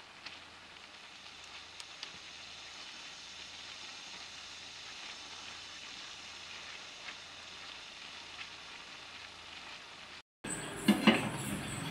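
Hot oil sizzling steadily as moong dal kachoris deep-fry in a pan, with a few faint clicks. Near the end the sound cuts out for a moment and returns louder, with a few sharp knocks.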